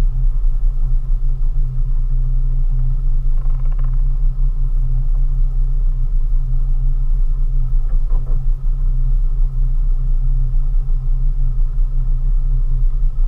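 20 hp Mariner outboard motor running steadily at slow cruising speed, a deep, even drone.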